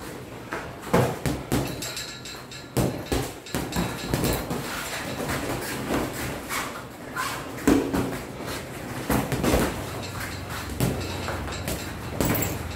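Punches in boxing sparring: gloves landing on gloves, guards and headgear, giving irregular sharp thuds, often in quick clusters of two or three.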